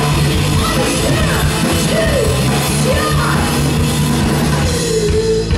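A rock band playing live and loud: electric guitar and bass guitar through the stage sound system, with a woman's voice singing and yelling gliding notes over the band.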